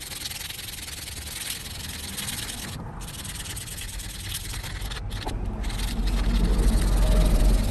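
Sandpaper rubbed back and forth by hand over a small steel knife blade: a continuous scratchy rasp with a few short pauses between strokes, louder over the last couple of seconds.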